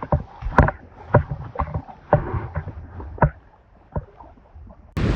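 A series of irregular knocks and thumps over a low wind-like rumble, closer together at first and then sparser. A louder steady sound cuts in abruptly just before the end.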